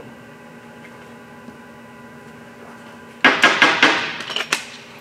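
A quick run of hard, clattering knocks about three seconds in, lasting over a second, like parts or tools being handled on a workbench. A steady low hum runs underneath.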